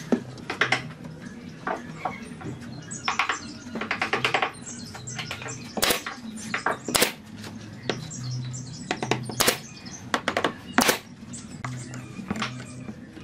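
Irregular knocks and clicks of wooden frame pieces and a metal screw clamp being handled and set on a pine tabletop frame, with a few quick runs of clicks.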